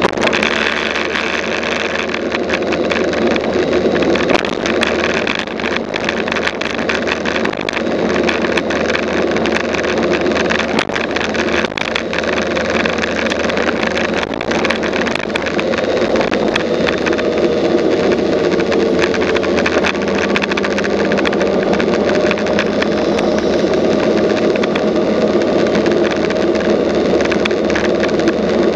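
Motorbike engine running steadily while riding, mixed with wind and road noise. The engine note climbs a little about halfway through and then holds.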